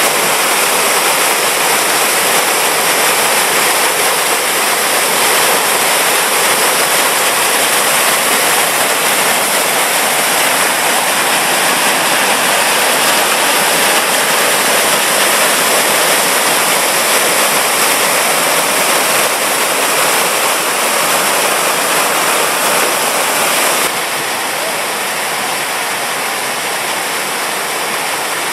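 Small 2.5 m mountain waterfall pouring over rock into its stream: a loud, steady rush of falling water. It drops a little in level for the last few seconds.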